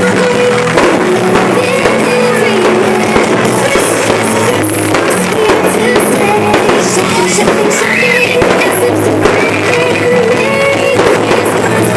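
Loud rock-style music with singing plays for a pyromusical fireworks show, with fireworks popping and crackling over it.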